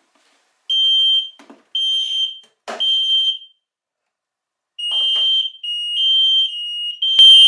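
Two carbon monoxide alarms, one of them an Ei detector, sounding together in repeated loud, high-pitched beeps of about half a second each, in groups with short pauses. They are set off by carbon monoxide in a sealed test box, showing that both detectors work. A sharp knock comes about a third of the way in, and another near the end.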